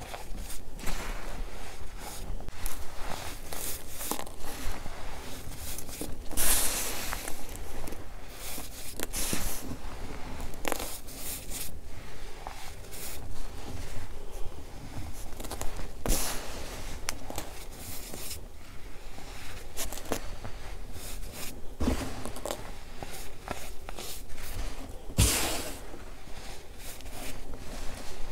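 Hands squeezing and crumbling a large heap of baking soda: an uneven run of soft, gritty crunches as the powder packs and breaks apart, with a few louder crunches along the way.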